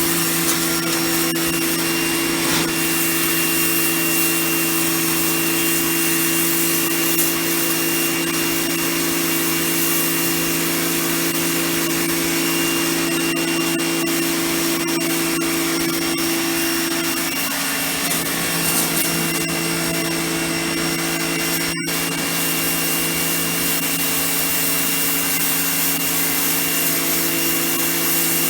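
Titan TTB66PRW electric pressure washer running steadily, its motor and pump humming with a high whine over the hiss of the water jet. One momentary dropout comes about three quarters of the way through.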